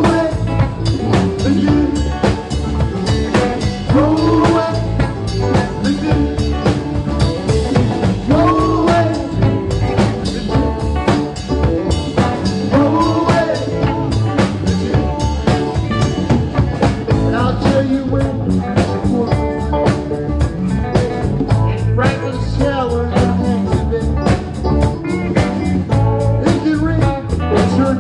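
Live rock band playing: electric guitars, bass, drum kit and keyboard together, with a steady drum beat under melodic lead lines that bend up and down in pitch.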